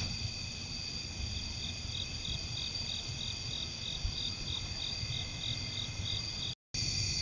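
Night-time insect chorus of crickets: a steady high trill, with one insect pulsing about three times a second from about a second in. The sound drops out briefly near the end.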